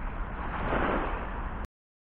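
Wind buffeting the microphone: a rough, flickering rumble with a hiss over it. It cuts out abruptly to dead silence for about half a second near the end.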